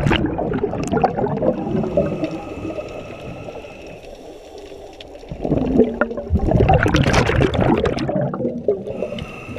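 Scuba diver breathing through a regulator underwater: a loud bubbling exhalation at the start and another from about halfway in. The quieter inhalations between them carry a faint thin whistle.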